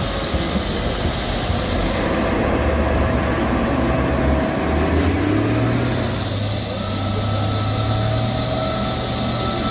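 Log skidder's diesel engine running steadily under work, a heavy low drone with a faint steady whine over it; the engine note rises and holds higher about six seconds in.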